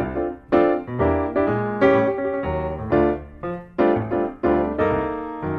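Background music: a piano playing a sequence of struck chords and notes, each one ringing and fading before the next.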